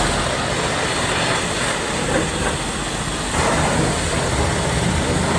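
Car wash spray: a steady, loud hiss of pressurised soap and water hitting the car, getting a little louder about three and a half seconds in.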